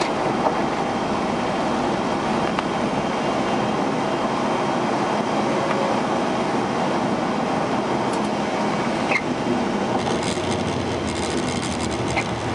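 Steady rushing noise inside the cockpit of an Airbus A340-300 climbing out after takeoff: airflow over the nose and engine noise. A few sharp ticks about eight or nine seconds in, and scattered crackles near the end.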